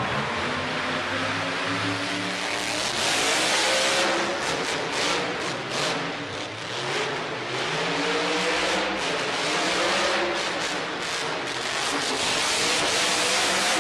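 Monster truck engines revving in an enclosed arena, their pitch rising and falling, with the roar growing louder from about three seconds in.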